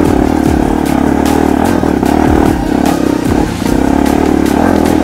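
Small dirt bike's single-cylinder engine running, its pitch rising and falling with throttle, with a run of short sharp ticks over it.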